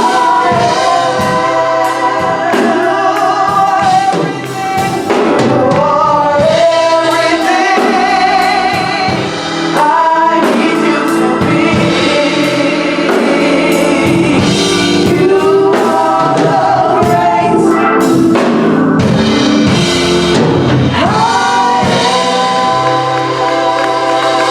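Gospel choir singing with a drum kit and band accompaniment.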